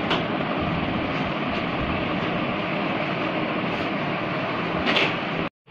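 Newly installed split air conditioner's indoor unit running, a steady rush of air from its fan. The sound cuts off abruptly near the end.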